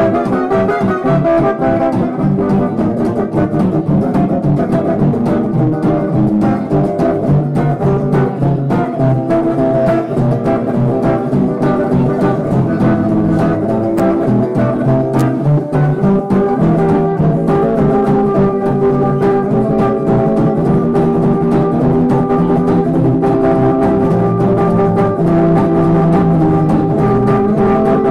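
Live acoustic blues played on two acoustic guitars, with long held melody notes over the guitar accompaniment.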